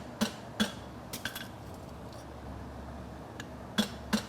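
Farrier's hammer striking a steel bar shoe on an anvil, with short metallic rings: two or three blows early, a pause of about two seconds, then blows resume near the end. A steady low hum from a Portacool evaporative cooler fan runs underneath.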